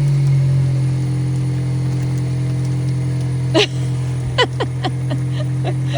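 Car engine running at idle, a steady low hum. About halfway through, a run of short, squeaky pitched sounds starts over it.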